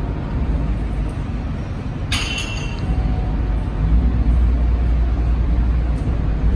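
Steady low rumble of the gym's room noise, with one brief metallic clink about two seconds in, fitting a dumbbell touching iron.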